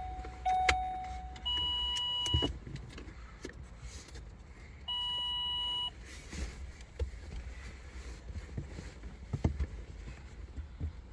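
Electronic beeps from the truck's tuning session: a lower steady tone, then two higher beeps about a second long, a few seconds apart. Scattered light clicks and knocks follow.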